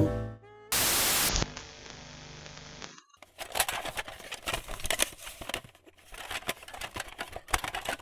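The tail of a music track dies away, then a VHS-style static sound effect: a short, loud burst of hiss about a second in, settling to a lower hiss, then after a brief dropout, irregular crackling and clicking.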